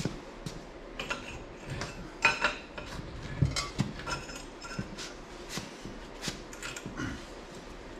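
Metal parts and tools clinking and knocking as they are handled, a string of separate sharp knocks, some with a brief metallic ring; the loudest come a little over two seconds in and again at about three and a half seconds.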